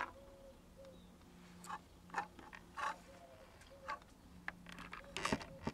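Faint, scattered clicks and light taps, about half a dozen, from small parts of a transistor radio being handled, over a faint low hum.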